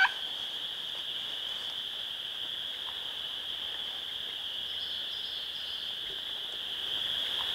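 Steady, high-pitched chorus of frogs calling from standing water, heard as a continuous hum, with the last note of a wild turkey gobble right at the start.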